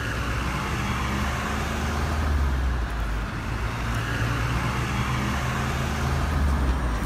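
Steady low rumble of a heavy truck engine, with a rushing hiss over it that grows a little louder midway and near the end.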